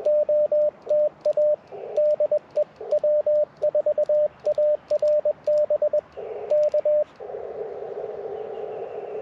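Morse code from an Icom IC-705 transceiver: a steady single-pitch tone keyed in dits and dahs on a paddle, with light key clicks at each element and bursts of receiver hiss in the gaps. About seven seconds in the keying stops and only the receiver's hiss through the narrow CW filter goes on while the 40-meter band is listened to for a reply.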